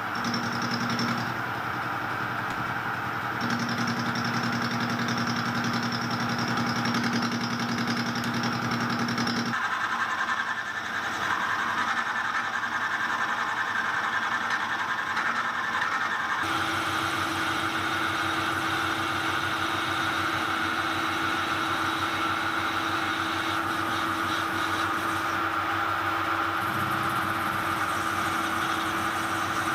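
Metal lathe running steadily while a turning tool cuts an aluminium bronze bar, throwing small chips. The machine's hum changes suddenly in tone twice, about a third of the way in and again past the middle.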